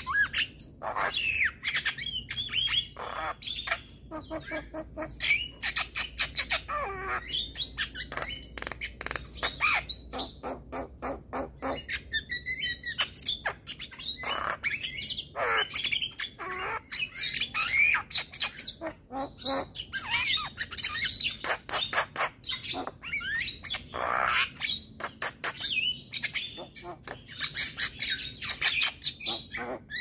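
Male Javan myna in full song: a continuous, rapid stream of clicks and chatter mixed with short whistled notes.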